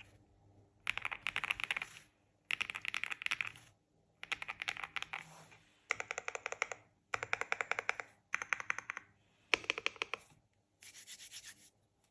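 Aula M75 aluminium mechanical keyboard, its keys struck in rapid runs: eight bursts of fast clicking, each about a second long, with short pauses between.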